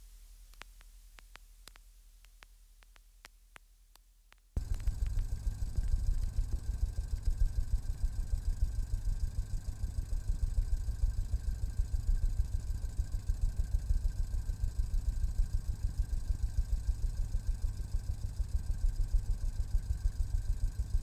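Near silence with a few faint clicks, then about four and a half seconds in a low, rapidly pulsing rumble starts abruptly and runs on steadily, with faint steady high tones above it. It is electronic sound design from a stage performance's score.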